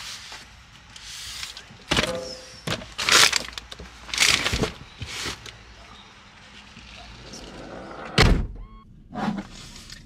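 A large cardboard microwave box being pushed into an SUV's cargo area, scraping and knocking several times. About eight seconds in, a heavy thunk as the rear liftgate is shut.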